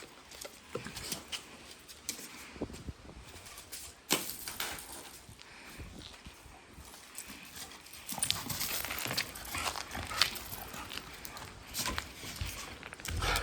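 A dog panting hard amid short scuffs and clicks of movement, getting louder about two-thirds of the way in.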